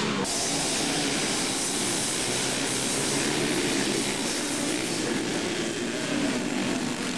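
A pack of racing three-wheeler ATC engines at full throttle as the field leaves the start line and accelerates away, many engines blending into one dense, steady noise. The sound brightens sharply just after the start as the engines open up together.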